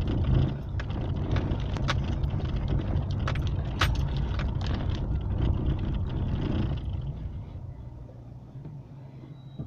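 Car tyres rumbling over cobblestones, heard from inside the cabin, with many sharp rattles and clicks. About seven seconds in the rumble and rattling drop away to a quieter hum as the car slows behind the car ahead.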